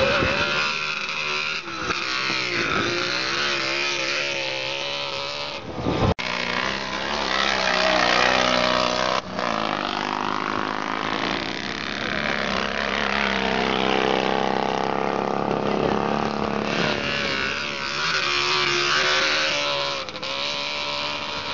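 Retro sidecar motocross outfits racing past, their engines revving, the note rising and falling as they accelerate and shift, with a brief break about six seconds in.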